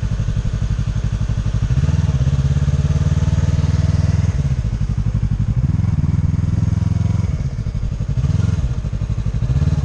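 Motorcycle engine running at low speed with a fast, even beat, swelling louder several times as the throttle is opened and eased off, as when riding a slow figure 8.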